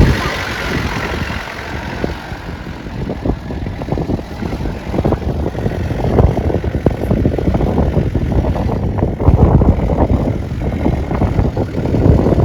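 An off-road vehicle's engine running on rough ground, a heavy low rumble broken by many irregular jolts and knocks.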